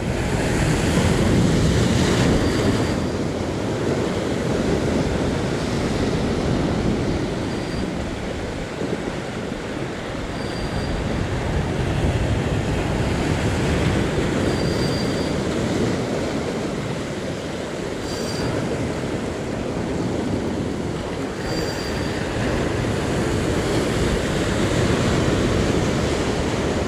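Sea surf washing against rocky shore with wind on the microphone: a steady rush of noise that swells and eases with the waves. A faint short high chirp sounds every few seconds.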